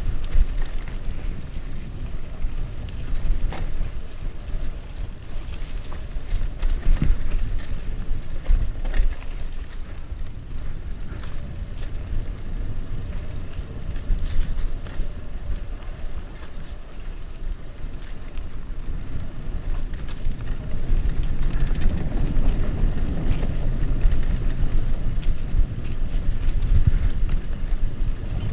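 Mountain bike rolling fast downhill on a dirt trail: wind noise on the microphone and a low rumble of tyres over dirt, with frequent short knocks and rattles from the bike going over bumps.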